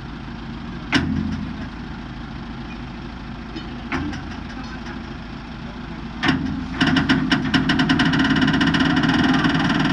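An engine running steadily, with sharp metal knocks about one second and four seconds in, then a loud, fast metallic rattle with a ringing tone that starts about seven seconds in.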